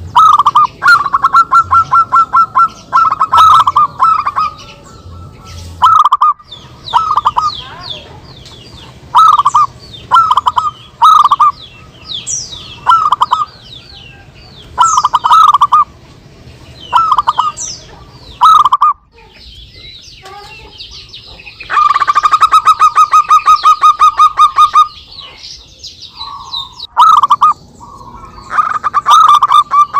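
Zebra doves (perkutut) cooing, several birds answering one another with repeated short phrases of quick staccato coos. Just past the middle comes one longer, fast rattling run of coos.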